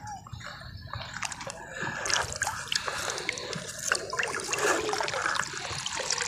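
Shallow lake water splashing and trickling close by in small, irregular splashes that grow busier from about two seconds in.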